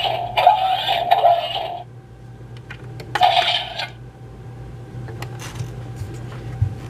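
Hard plastic joints of a Deluxe Flying Baymax action figure being worked by hand: a rasping, ratcheting grind for about two seconds, another shorter one a second later, then scattered light clicks as the leg joints are moved.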